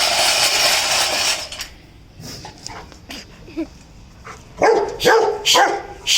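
Seven-month-old Rottweiler puppy barking: a loud rough noise that stops about a second and a half in, then a few short, loud barks near the end.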